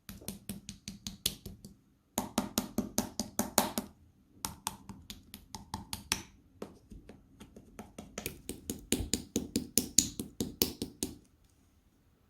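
Slime being squeezed and poked by hand, giving rapid trains of crisp clicks and pops, several a second, in stretches with short pauses between.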